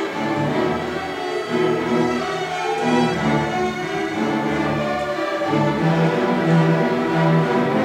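High school string orchestra playing: violins, violas, cellos and double basses bowing held notes that change about every half second to second.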